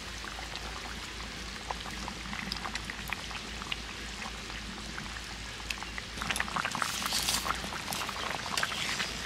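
Fish curry bubbling at a boil in a kadai, a steady hiss with many small pops. It grows louder about six seconds in.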